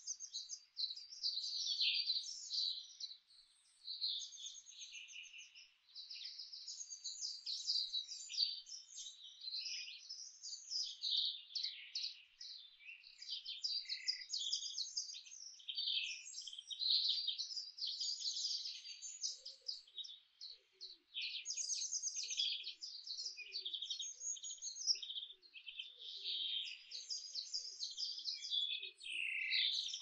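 Several songbirds singing at once, a continuous tangle of high, quickly changing chirps and phrases. About two-thirds of the way in, a faint, much lower series of short falling notes joins beneath them.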